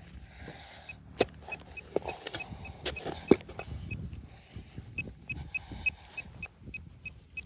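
Digging at a metal detecting target: a few sharp scrapes and knocks of a digging tool in soil, with short faint chirps from a metal detector.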